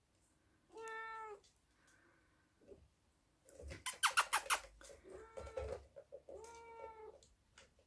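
Minuet kittens meowing: a high call about a second in and two more in the second half. In the middle comes a loud run of rapid plastic clicks and clatter as a kitten bats at the balls in an orange tower ball-track toy.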